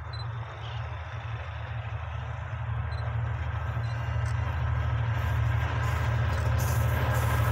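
GT22 diesel-electric locomotive approaching, its engine's low drone growing steadily louder. A hiss of wheels on rail builds over the last couple of seconds.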